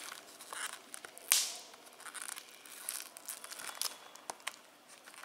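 A plastic Blu-ray case and its paper insert being handled: light clicks and rustles, with one louder, short rustle about a second in.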